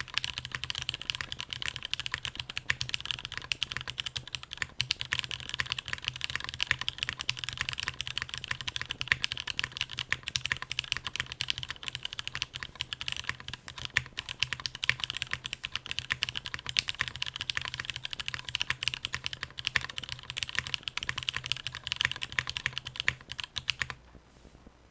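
Steady, fast typing on an Akko Top 75 aluminium mechanical keyboard with lubed and filmed Cherry MX Black Hyperglide linear switches, an FR4 plate and GMK ABS keycaps. The keystrokes come in a dense stream and stop about a second before the end.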